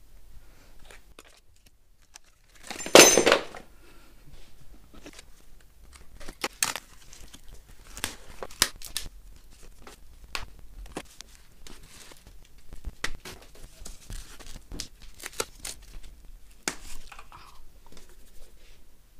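Packing material being torn and pulled off a new folding bike: one loud rip about three seconds in, then scattered rustling, crinkling and small clicks as the wrapping is handled.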